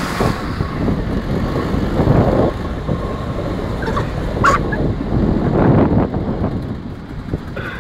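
Car driving along a street, a steady rumble of engine and tyres that swells twice, with a couple of short sharper sounds about four seconds in.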